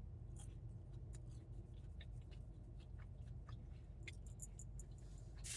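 Chewing crunchy fried corn nuggets: small irregular crackling clicks over a low steady hum.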